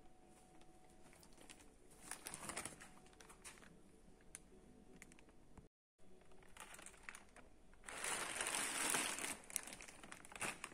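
Plastic mailer bag crinkling as it is handled and picked up, in uneven bursts, loudest about eight to nine and a half seconds in, with a brief break just before the middle.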